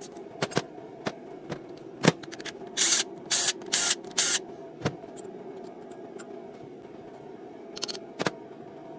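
Scattered ratchet clicks on the fasteners of a CAV DPA injection pump's cover, then a cordless power tool run in four short bursts about three seconds in, with a few more clicks near the end.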